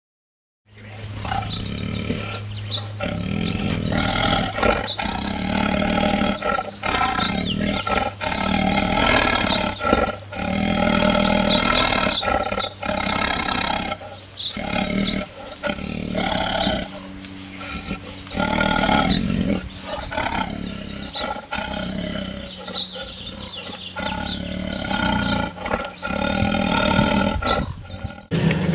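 Tiger roaring and growling, a long string of loud calls with short breaks between them, over a low steady hum.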